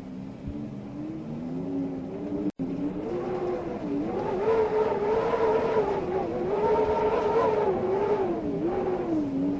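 Wind howling: a wavering, moaning tone that rises in pitch and grows louder about four seconds in, over a steady rush. The sound drops out for an instant about two and a half seconds in.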